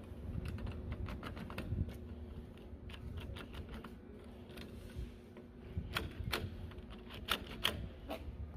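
Irregular small clicks and taps of door-handle hardware being handled and fitted, with a run of sharper clicks in the last few seconds.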